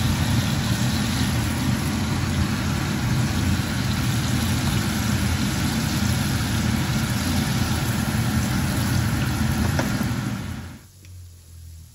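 Steady low motor hum with a rushing, fan-like noise, typical of a kitchen extractor fan running over the stove; it drops away abruptly just before the end.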